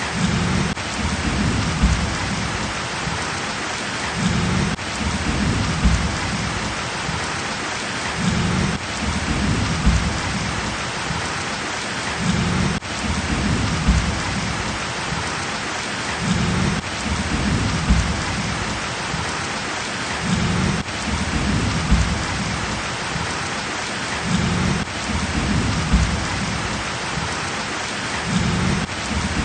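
Heavy rain pouring steadily, a dense even hiss, with low rumbling swells coming and going every second or two.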